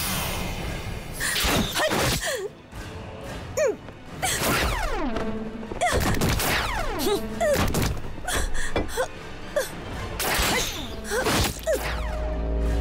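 Film fight-scene sound effects: repeated whooshes and sudden hits over dramatic music, with a sustained music chord coming in near the end.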